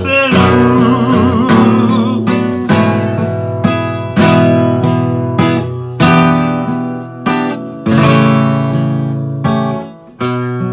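Acoustic guitar playing the song's closing bars: strummed chords struck about once a second and left to ring out. A held sung note with vibrato trails off in the first second or so.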